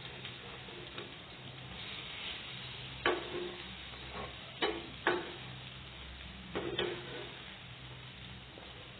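Egg-dipped bread slices frying with a steady sizzle in a nonstick pan, while a metal spatula turning them clicks against the pan several times in the middle.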